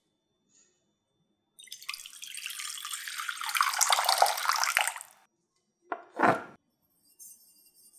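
Water poured in a thin stream into a glass mixing bowl, splashing for about four seconds. A short knock follows about a second later, as a small glass dish is set down on the wooden table.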